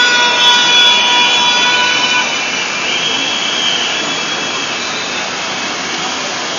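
Steady noise of a large outdoor crowd marching in the rain, with one held pitched note, from a horn or instrument, for about the first two seconds and a fainter high tone a little later.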